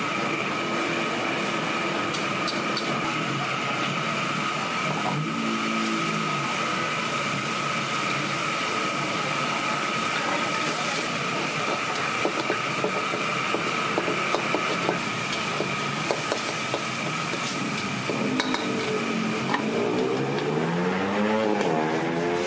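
Noodles stir-frying in a steel wok over an open fire: a metal spatula scraping and knocking against the wok, more often in the second half, over steady sizzling and hiss with a constant high whine underneath.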